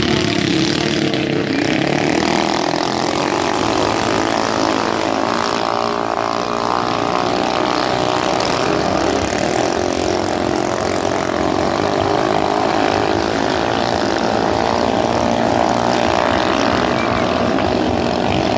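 Racing boat engine running steadily at high revs.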